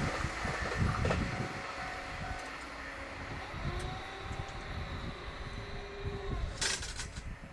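A train on a high-speed stretch of track, its rumble and wheel noise dying away as it runs off past the level crossing, with a short burst of noise near the end.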